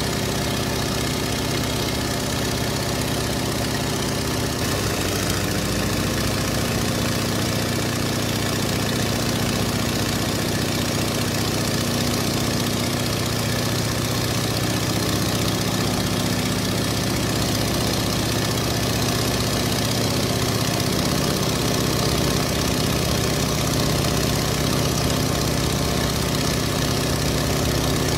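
An engine running steadily at a low, even speed, its tone shifting slightly about five seconds in.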